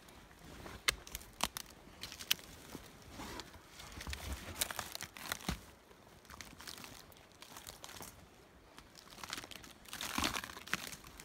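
Footsteps crunching through dry conifer needles, twigs and forest litter while walking down a steep slope, with irregular snaps and rustles, busiest about ten seconds in.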